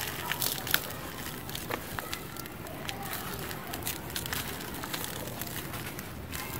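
Lumps of dry cement crunching and crumbling between bare hands, with many sharp, irregular crackles; the loudest crunches come within the first second.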